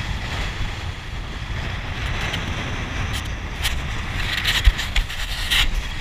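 Motorboat under way: wind buffeting the microphone with an uneven low rumble, and water rushing past the hull, with a few short louder splashes in the second half.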